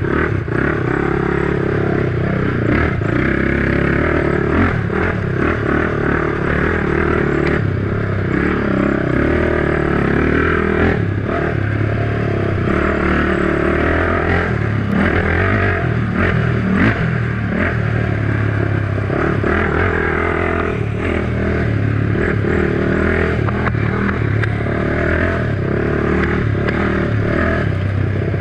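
Honda 450EX quad's single-cylinder four-stroke engine running under throttle at riding speed on a dirt trail, with frequent knocks and rattles from the machine going over bumps.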